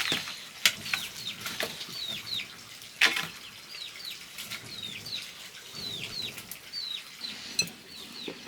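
A bird peeping over and over, short high notes that each fall in pitch, about two a second, over clicks and knocks of cooking utensils, the sharpest knock about three seconds in.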